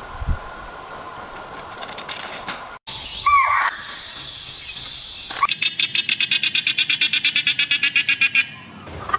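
A string of short animal-call clips: a brief curling call a few seconds in, then a rapid pulsing trill of about ten notes a second lasting some three seconds.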